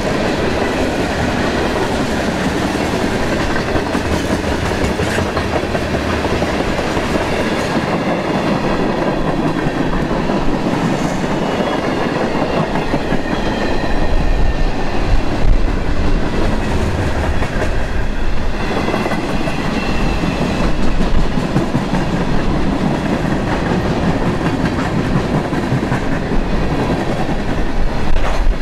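Freight train of covered hopper cars rolling past, with a steady rumble and clatter of steel wheels on the rails.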